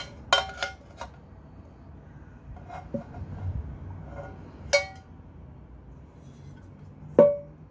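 A metal camping pot clinking and knocking against the inside of a Fire Maple camping wok as the two are nested and handled: a quick run of light clinks at the start, single ringing knocks about three and about five seconds in, and a louder clank that rings on briefly near the end.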